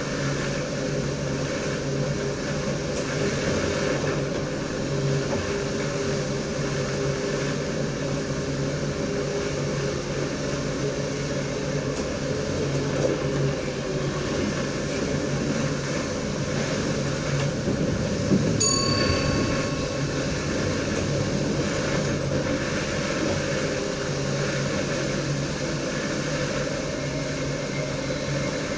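Steady running noise of an NS DDZ double-deck electric train heard inside the driver's cab, a continuous rumble with a steady hum. A short electronic beep sounds once about two-thirds of the way in.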